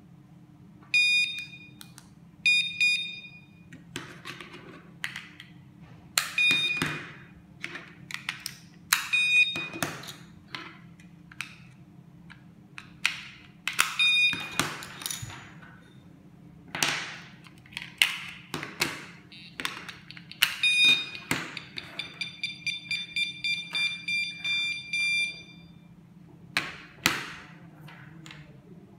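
Battery-powered magnetic door/window alarm units (KS-SF03R) giving short single high beeps now and then as they respond to a key-fob remote, with a quick run of rapid beeps for about three seconds near the end. Sharp plastic clicks and knocks come in between, as the units and remote are handled on a wooden table.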